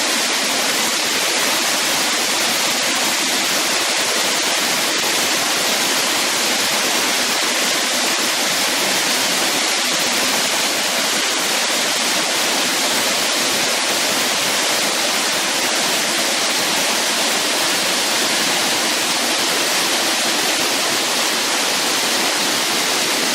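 Kajikazawa Fudō Falls: water pouring down in a steady, unbroken rush with a hissing, bright edge.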